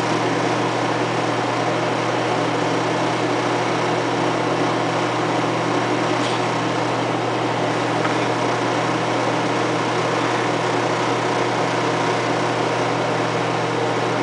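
Microwave oven running with a banana inside: a steady low hum under an even whir of its fan, with no popping or bursting from the banana.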